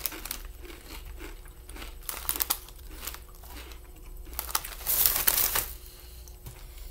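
Foil-lined chip bag crinkling and rustling as a hand reaches in for chips, loudest in a short burst about two seconds in and a longer one about five seconds in.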